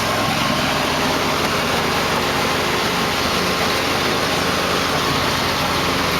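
Small engine running steadily with a fast even pulse, under a loud, even hiss.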